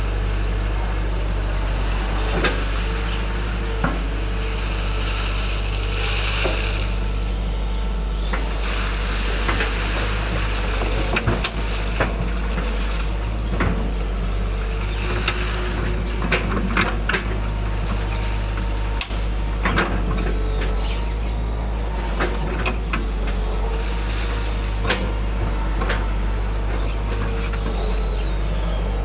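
Excavator's diesel engine running steadily while it digs, with scattered knocks and clanks of the bucket and arm and a brief hiss about six seconds in.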